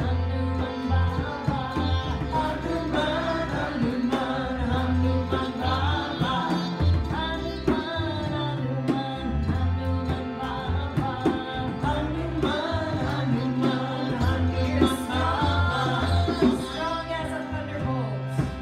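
Live kirtan: women's voices singing a devotional mantra over sustained harmonium chords, with tabla keeping a rhythm and a low bass line moving under it.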